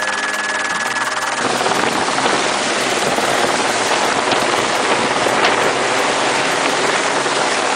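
Helicopter cabin drone with a steady high whine, which about a second and a half in gives way to a loud, even rushing of rotor downwash buffeting the microphone beneath a helicopter hovering with an underslung sling load. A few faint ticks sound within the rush.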